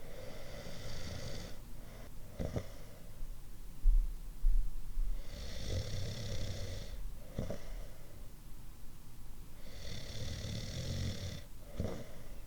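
A person snoring in a slow, even rhythm: three snores about four to five seconds apart, each a hissing breath of about a second and a half followed a second later by a short sharp puff. Two low thumps about four seconds in are the loudest sounds.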